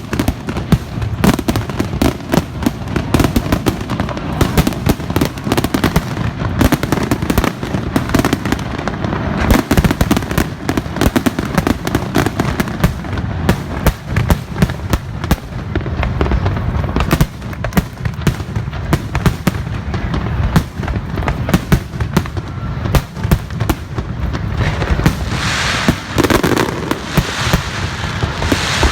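Fireworks going off in rapid succession: a dense, continuous barrage of bangs and crackling with a steady low rumble underneath.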